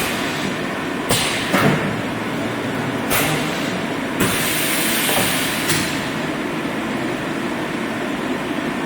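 Automatic blister packaging machine for button batteries running: a steady mechanical hum broken by irregular sharp clunks, with a hiss lasting over a second from about four seconds in.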